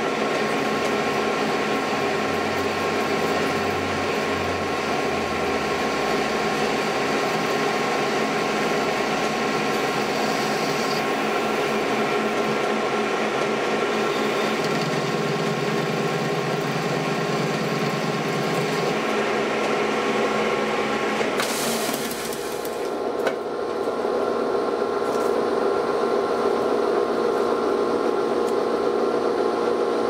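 Old metal lathe running steadily as it rough-turns a small metal part down in diameter, its motor and gearing giving a steady mechanical whine. About two-thirds of the way through there is a short hiss, a brief dip in loudness and a click, then the steady running goes on.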